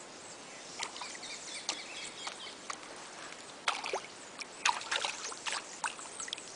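Shallow river water trickling and lapping at a muddy bank, with scattered sharp clicks and crackles and a few short chirps, one falling in pitch about four seconds in.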